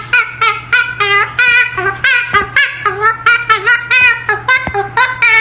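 A bird's rapid, high-pitched repeated calls, several a second, each bending in pitch, over a steady low hum.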